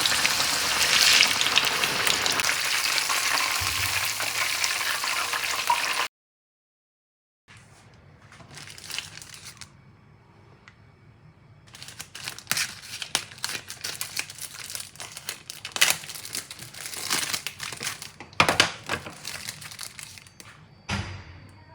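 Chicken frying in hot oil: a loud, dense sizzle that stops abruptly about six seconds in. After a short dead gap, sparser intermittent crackling and crinkling follows.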